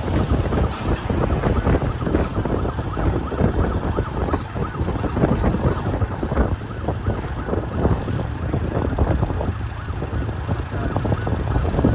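Police escort sirens wailing with fast up-and-down pitch sweeps, over the steady rumble of moving vehicles and wind on the microphone.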